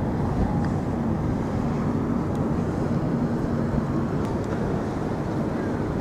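Steady low rumble of outdoor city ambience by the river, with a faint engine hum through the first half.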